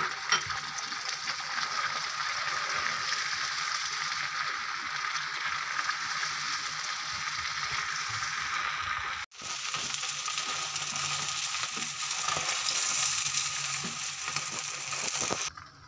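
Pieces of beef brain frying in bubbling ghee in a frying pan: a steady crackling sizzle, with a spatula stirring through them in the later part. The sizzle cuts out for an instant about halfway through and stops just before the end.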